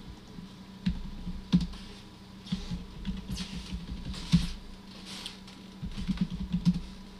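Keystrokes on a computer keyboard: separate, irregular key presses, then a quicker run of them near the end.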